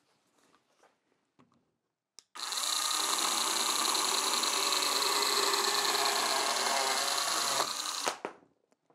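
Einhell GE-PS 18/15 Li BL 18 V brushless cordless pruning chainsaw starting up about two seconds in and cutting through a small log held in a vise at a steady, even speed for about five seconds. It goes through like butter, then stops near the end.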